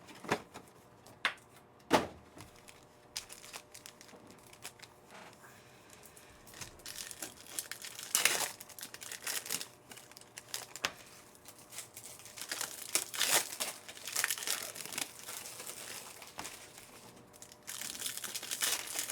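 Plastic and foil trading-card pack wrappers being torn open and crinkled by hand, in a run of crackly bursts through the second half, after a few sharp clicks at the start.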